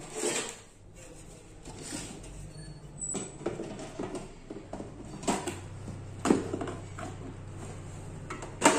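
Metal top cover of a CP Plus network video recorder being handled and fitted onto its chassis: scattered light knocks and scrapes of metal on metal, with a sharper knock just before the end.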